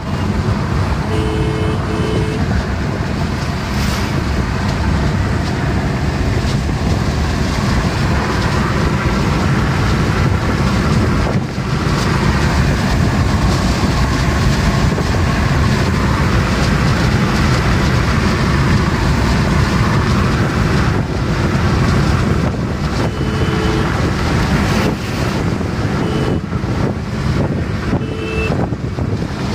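Steady road and engine noise heard from inside a car's cabin while cruising at highway speed. Short horn toots cut through it, a double toot about a second in and a few more single toots near the end.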